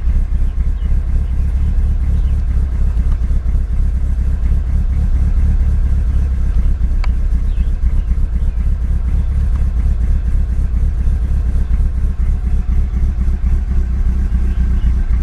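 Mitsubishi Lancer Evolution VIII's 2.3-litre stroker 4G63 turbocharged four-cylinder idling steadily at about 1000 rpm on E85 soon after a cold start, heard from inside the cabin. The idle is very solid, holding its target without hunting.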